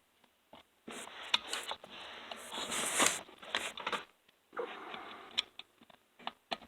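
Small screwdriver scraping and clicking against the chain brake spring and pin of a Stihl MS460 chainsaw as it is levered, with a longer hissing scrape about three seconds in; the small blade is not managing to pull the spring over its pin.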